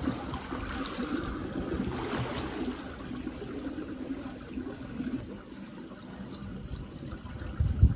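Pool water splashing and lapping around a large inflatable swan float. The water is busier for the first couple of seconds, then settles to quieter sloshing, with a brief low thump near the end.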